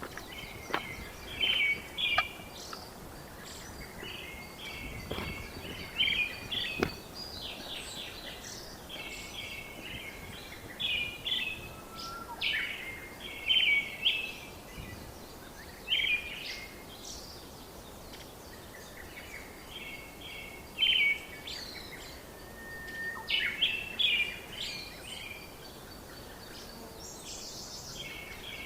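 Songbirds singing short, quick chirping phrases every second or two over a steady background hiss. A few faint knocks come in the first several seconds.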